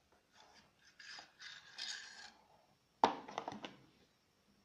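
Magazine of a Powerfix Profi hand staple gun being opened, its spring-loaded metal pusher rod sliding out with scraping and rubbing. A sharp metallic click about three seconds in, followed by a brief rattle.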